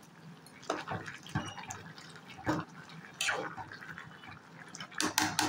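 Beef cooking down in its own juices in an aluminium pot: irregular wet bubbling and squelching sounds, a few each second.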